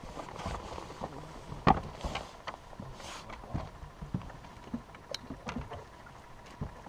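Scattered knocks and clicks of anglers moving about and handling gear in a fishing boat, the loudest a single sharp knock about two seconds in, over a low steady hiss.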